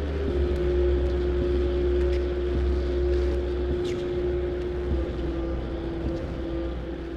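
Ambient drone passage of atmospheric black metal: a deep steady rumble under a held tone that steps a little lower in pitch a few times, over a wash of noise.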